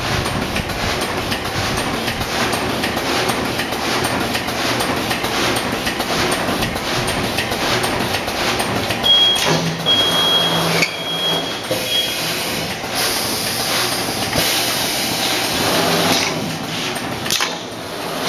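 BJA4P double-decker sealing and cutting bag-making machine running, a steady rapid mechanical clatter, with a brief high steady tone about halfway through.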